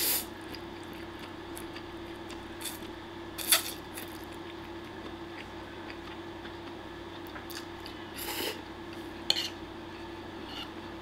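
Spaghetti being slurped and a metal fork tapping and scraping on a wooden plate while eating. Short slurps come right at the start and about eight seconds in, with sharp fork knocks about three and a half and nine seconds in.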